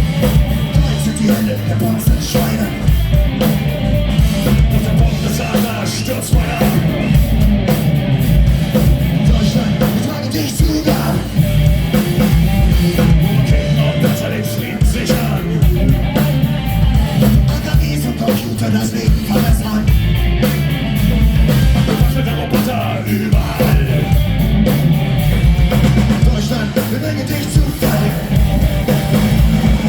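A punk rock band playing loud and live, with a singer over the full band.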